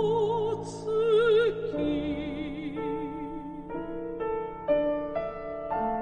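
Classically trained female singer holding notes with a wide operatic vibrato over piano accompaniment. A little before halfway her voice stops, and the piano plays on alone in slow, separate notes about every half second.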